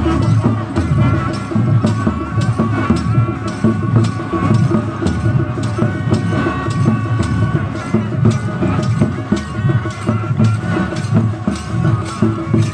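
Traditional folk drumming: nagara drums beaten in a fast, steady rhythm, with a held melodic line sounding over the beat.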